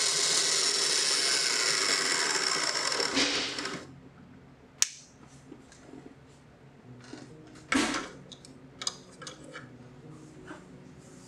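A 3D-printed bandsaw running steadily under its belt-driven motor, switched off at its control knob about three seconds in and quickly winding down to a stop. After that come a few sharp clicks and knocks of handling, the loudest about five and eight seconds in.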